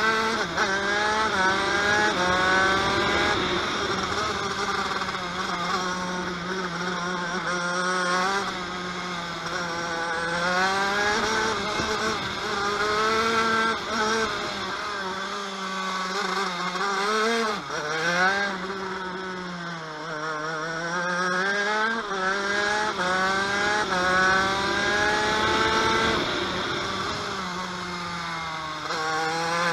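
TM KV92 125cc two-stroke shifter kart engine at racing speed, its pitch climbing in short stepped runs as it is shifted up through the gears and then falling away into the corners, several times over.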